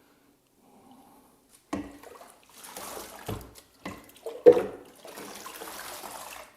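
Water running and splashing in a sink while a hen is washed, with a few knocks from handling, the loudest about halfway through. The running water comes in twice and cuts off suddenly near the end.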